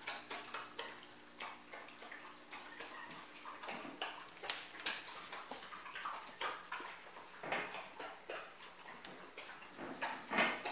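Dogs, a sheltie among them, eating from bowls on the floor: irregular small clicks, licks and smacking of food and bowl, with a faint steady hum underneath.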